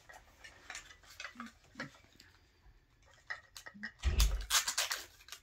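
Light clicks and rustles of small plastic packaging being handled, then a louder burst of plastic crinkling about four seconds in as a Mini Brands miniature's wrapper is opened.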